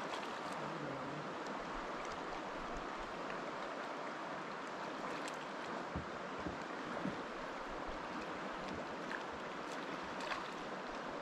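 Steady rush of flowing river water around a kayak, with a few faint knocks.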